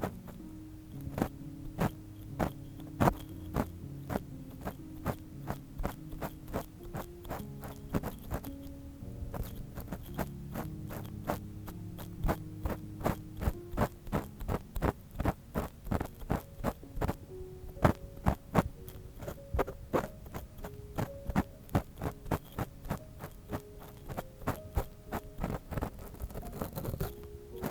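Ear pick scraping and tapping in a binaural microphone's ear: many short scratches in an irregular rhythm. Underneath is soft background music of slow, held low notes.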